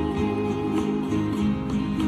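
Hawaiian hula music carried by acoustic guitar, playing steadily.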